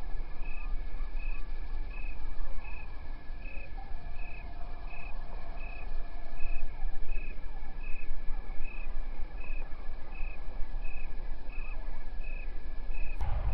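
Outdoor marsh ambience: a steady low rumble under a high chirp repeating about twice a second and a thin, steady high whine. A sharp click comes just before the end, after which the low rumble gets louder.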